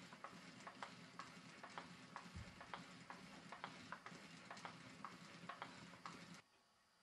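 Small homemade wooden four-cylinder radial air engine running on air from hand-pumped bellows: faint, light wooden clicking of the piston-valves and bellows, about three clicks a second, over a soft airy hiss. It cuts off suddenly near the end.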